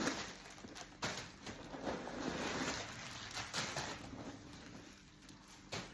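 Rustling and handling of a leather hobo bag as it is opened and its inside shown. Sharp clicks come about a second in and near the end.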